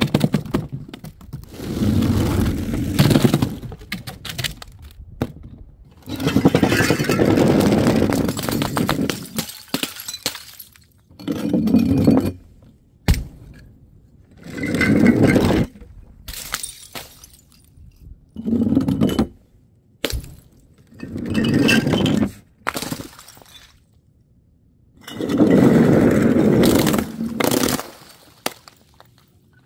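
Glass breaking again and again: about nine separate bouts of crunching and shattering, each a second or two long, with clinking glass between them.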